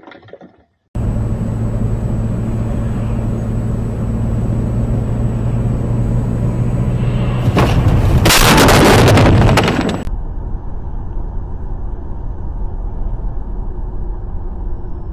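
Dash-cam recording of a car: a steady engine and road drone inside the cabin, then about seven seconds in a loud crash lasting two to three seconds that cuts off abruptly. After it comes duller, quieter road noise from another dash cam.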